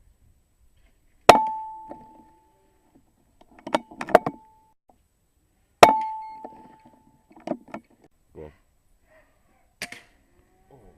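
Two air rifle shots about four and a half seconds apart, each a sharp crack with a short metallic ring after it. A cluster of fainter clicks follows each shot, and a softer click comes near the end.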